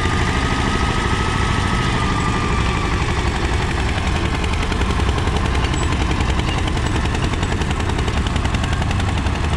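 Mahindra 235 DI tractor's two-cylinder diesel engine working under load as it pulls a nine-tyne cultivator through the soil. It runs with a fast, even exhaust beat.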